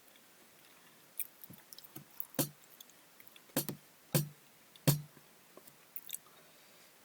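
Eating sounds: scattered mouth clicks and smacks from chewing, with a few short soft thumps about two and a half to five seconds in.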